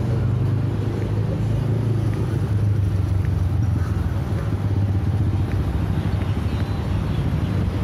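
Steady low rumble of road traffic passing along a city street.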